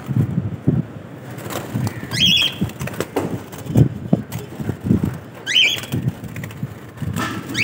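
Cage birds fluttering in a wire aviary amid knocks and rustling as a clay nesting pot and its straw are handled. A bird gives a short rising chirp three times.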